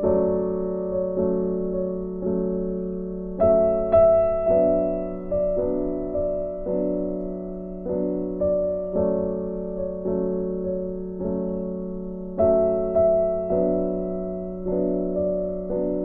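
Background piano music: a slow, even run of struck notes, each ringing and fading, with a louder phrase about three and a half seconds in and again near twelve and a half seconds.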